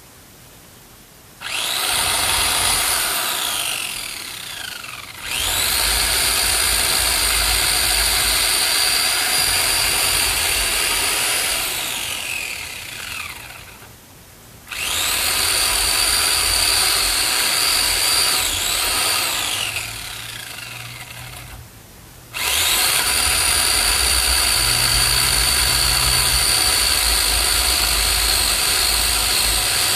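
Electric chainsaw running at full speed in four long bursts, its motor whining steadily, while cutting wood. Between bursts the trigger is let go and the whine falls in pitch as the chain coasts down, then it starts up again abruptly.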